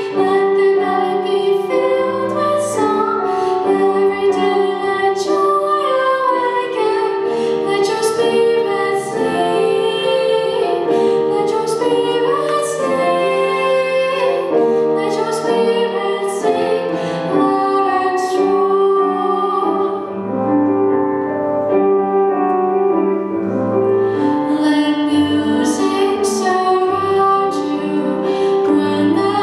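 A girl singing a solo song into a microphone, with piano accompaniment.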